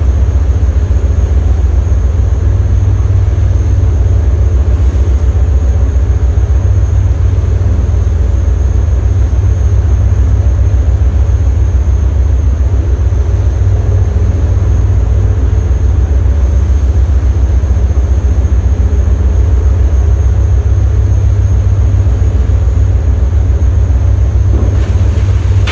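A boat's engine running steadily: a loud, constant low drone with a fast even pulse.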